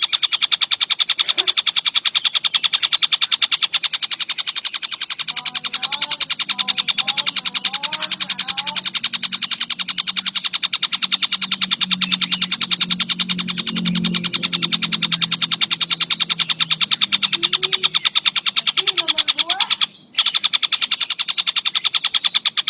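Tengkek buto (collared kingfisher) calling in a loud, unbroken, rapid chatter of many sharp notes a second. The chatter breaks off briefly about 20 seconds in. A low hum sits under it through the middle.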